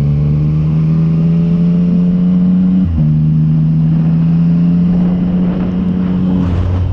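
Motorcycle engine running under throttle, its pitch slowly rising, with a brief break about three seconds in like a gear change. Near the end the pitch drops as the throttle is rolled off.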